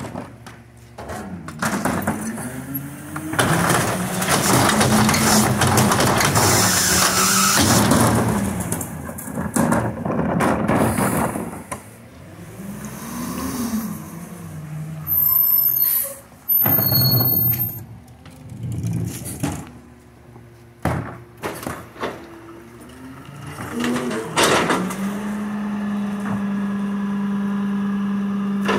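Autocar ACX garbage truck with a McNeilus rear-loader body working: the engine revs up and down repeatedly as the hydraulics run, with clanking, knocks and short hisses from the packer and cart tipper. Near the end the engine holds a steady, raised speed.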